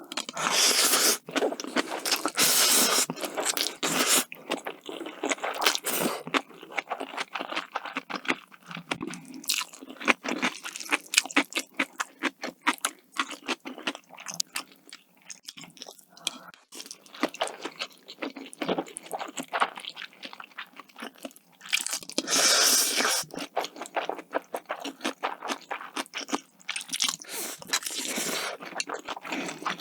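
Close-miked eating: crunchy bites and wet chewing, a dense run of small crackles, with longer, louder bursts near the start and again about three quarters of the way through.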